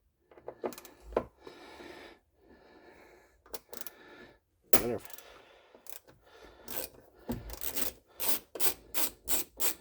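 Small metal tool parts clicking and clinking while a replacement T27 Torx bit is handled and fitted, ending in a run of regular sharp clicks about three a second.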